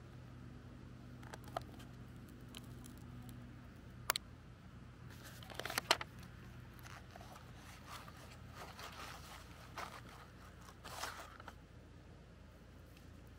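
Intermittent rustling and crinkling of packaging, with a few sharp clicks and a louder crackling burst around the middle, over a low steady hum.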